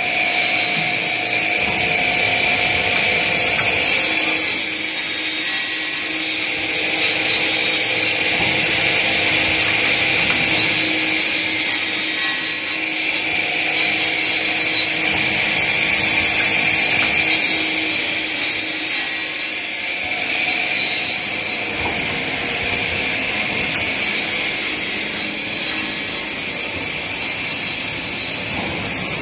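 Automatic band saw machine running, its blade cutting metal tube with a steady hissing noise.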